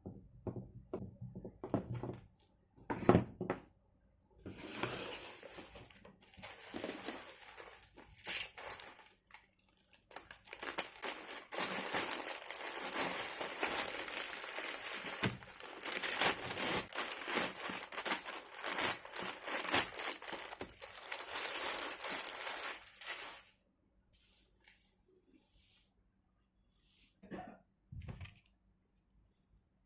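Crinkling and tearing of wrapping being handled, with scattered rustles and clicks at first, then a long stretch of continuous crinkling from about ten seconds in that stops abruptly with a few seconds left, followed by a couple of faint knocks.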